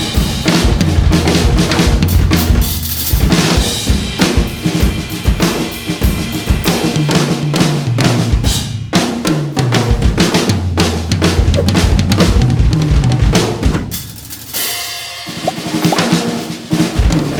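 A drum kit is being played, with bass drum, snare and cymbals in a steady groove and runs of drum hits that step down in pitch, easing off briefly near the end. The kit is a Nagano Work Series with all-birch shells.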